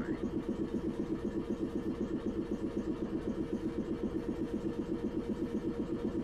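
Old streetcar's on-board air compressor running while the tram stands still: a steady, fast chugging of about seven beats a second.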